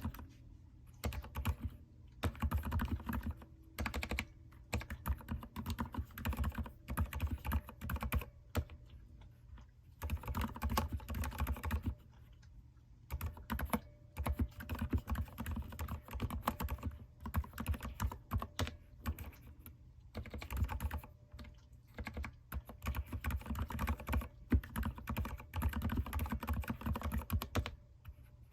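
Typing on a mechanical keyboard: fast runs of key clacks, broken by a few short pauses of a second or so.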